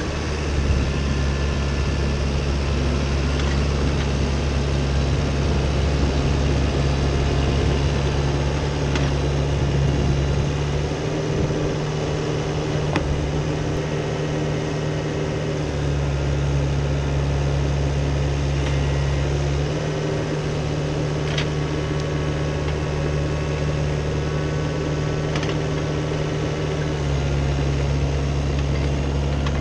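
CAT 304CR mini excavator's diesel engine running steadily, its low drone dropping and rising again every few seconds as the hydraulics are worked, with a few sharp knocks.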